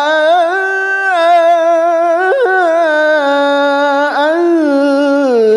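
A man reciting the Quran in melodic tajwid style into a handheld microphone, drawing one word out into a long melismatic phrase whose pitch rises and falls with ornaments, with a brief catch about four seconds in.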